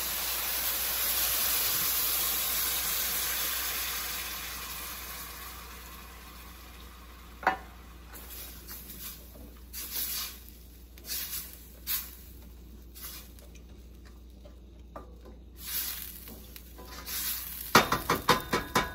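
Coconut milk sizzling as it hits a hot stainless-steel sauté pan of cooked onions and garlic, the sizzle dying away over the first six seconds or so. Then a wooden spoon stirring and scraping through the liquid in the pan with scattered knocks, turning into a quick run of taps near the end.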